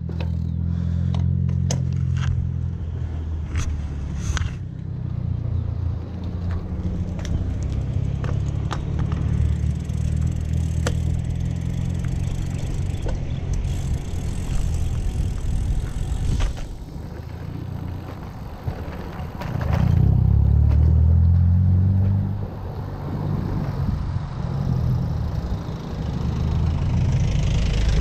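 Wind buffeting the microphone of a helmet-mounted action camera on a moving bicycle: a low rumble that swells and eases, with scattered clicks and rattles in the first half and a louder rush about two-thirds of the way through.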